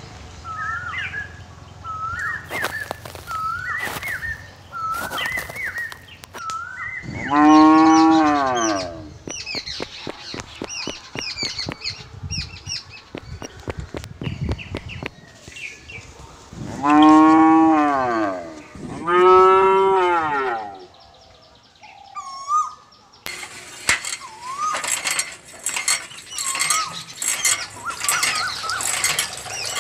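Cows mooing: three long moos falling in pitch, the last two close together, with short high chirps repeating about once a second in the first several seconds. From a little after two-thirds of the way in, water pours from a thin hose and splashes into a small pool.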